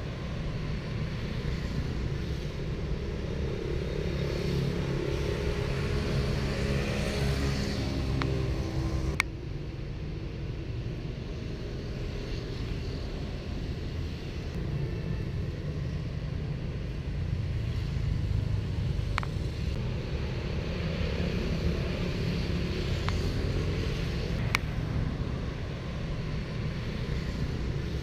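Steady low rumble of road traffic, with a few sharp clicks; at the first click, about a third of the way through, the higher hiss drops away suddenly.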